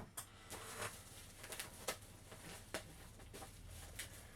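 Faint, scattered clicks and taps of a boxed Funko Pop figure being handled and turned over, against a low room hum.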